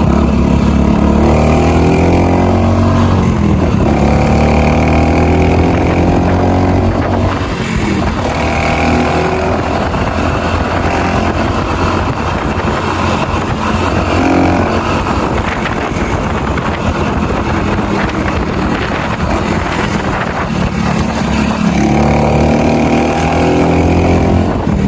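Small motorcycle engine running under way, its revs climbing and falling back several times.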